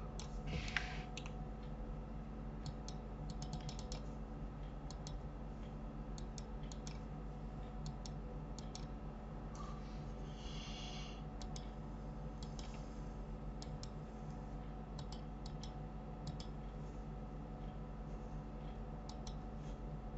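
Scattered clicks of a computer mouse and keyboard, single and in quick runs, over a steady low hum. About halfway through there is a brief rustling noise.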